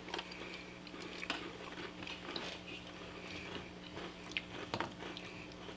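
Faint chewing and crunching of crisp Girl Scout Lemon-Ups cookies by several people, heard as scattered small crunches and mouth clicks. Under it runs a steady low hum.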